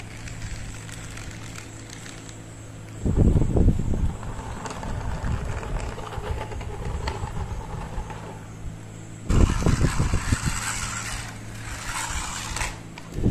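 Plastic toy vehicles pushed by hand along a hard painted board, their wheels rolling and scraping in rough, rumbling stretches about three seconds in and again from about nine seconds, over a steady low hum.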